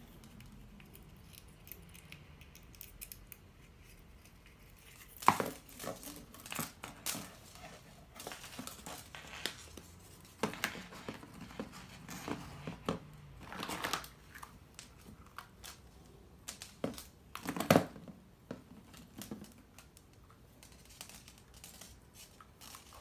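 Hollow plastic Easter eggs being handled: irregular clicks and knocks as the egg halves are snapped shut around a ribbon and set down on a table, the loudest about five seconds in and again near eighteen seconds.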